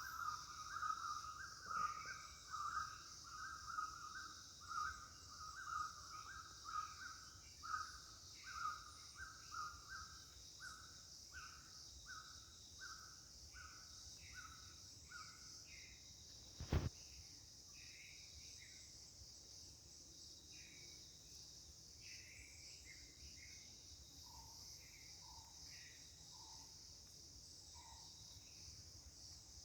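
Rainforest ambience: a steady high insect drone. Over it, an animal's call repeats about twice a second, slows and stops about halfway, and scattered short chirps follow later. One sharp click comes a little past the middle.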